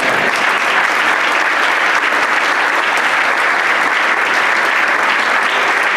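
Church congregation applauding steadily, a dense patter of many hands clapping.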